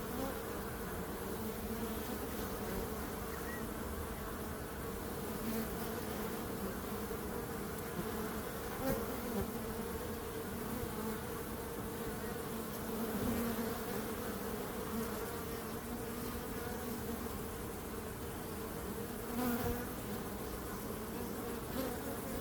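Many bees buzzing in a steady hum, with a few brief louder swells as bees pass close.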